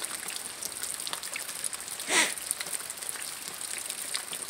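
Rain pattering in a steady hiss of fine drop ticks, with one short, louder noise about two seconds in.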